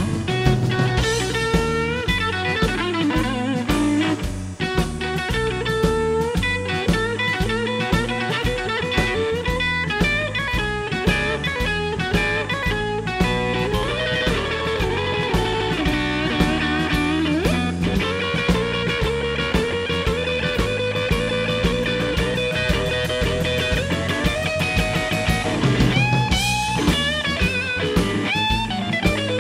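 Blues band playing an instrumental break, with lead guitar playing bending notes over bass and a drum kit.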